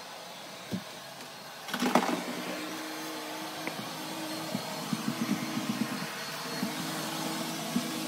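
A eufy robot vacuum running with a steady whirring hum. It becomes much louder about two seconds in, and after that it makes many light irregular clicks and rattles as it travels.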